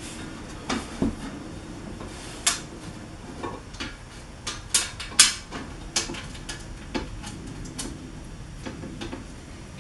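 Metal hardware clinking and tapping as bolts, washers and nuts are fitted into the rack parts: a dozen or so sharp, irregular clinks, the loudest about five seconds in.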